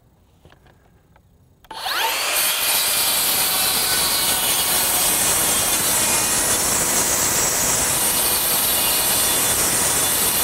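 Makita 40V XGT brushless rear-handle 7-1/4-inch circular saw starting up almost two seconds in, its pitch rising briefly, then cutting steadily through a sheet of OSB.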